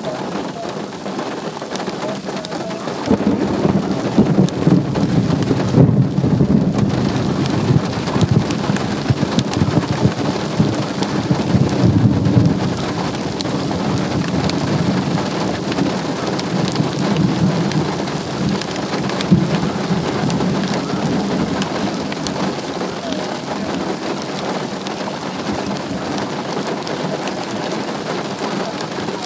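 Steady rain falling, with a long, deep rumble of thunder that builds about three seconds in, rolls on for around ten seconds and then fades, followed by a weaker swell of rumbling.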